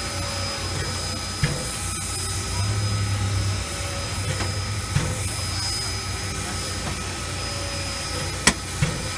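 Nickel Plate Road 765, a Lima-built 2-8-4 Berkshire steam locomotive, standing with steam up: a steady hiss and hum with a thin high whine. A few sharp clicks break in, the sharpest near the end.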